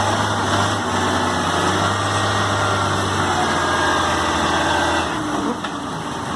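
Logging truck engine running steadily with a low hum, which drops away about five seconds in.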